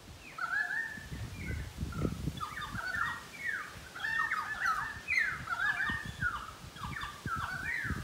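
Pied currawongs calling: a dense run of short whistled notes that slide up and down, sometimes overlapping. It starts about half a second in and carries on without a break.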